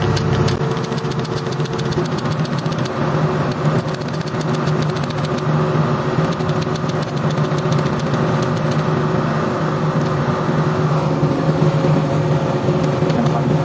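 Excavator's diesel engine idling steadily, a constant low hum.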